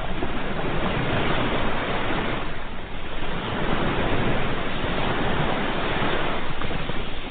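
Ocean surf washing onto a shore in a continuous rush of water, easing off briefly about three seconds in before building again.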